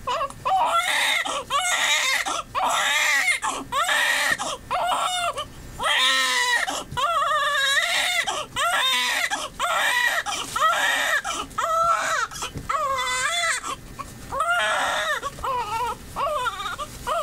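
Newborn baby crying: a run of short, pitched cries, about one a second, each arching up and down in pitch, with quick breaths between them.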